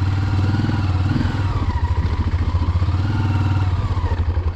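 Honda Transalp 600's V-twin engine running while the motorcycle is ridden, a loud steady low pulsing drone.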